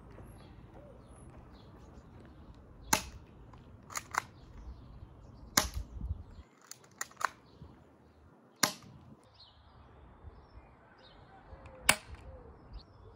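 Glock 17 replica BB pistol firing: four sharp snaps a few seconds apart, with quieter clicks between some of the shots.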